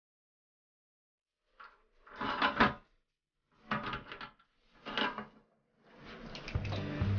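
Plastic toilet seat hinges clattering and clicking as the seat is fitted onto its mounting brackets, in three short bouts, the loudest about two and a half seconds in. Music fades in near the end.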